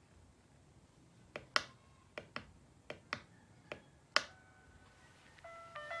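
GMMK Pro mechanical keyboard giving about eight sharp clicks in pairs at its top-right corner, around the knob. A few seconds later, background music with held notes starts.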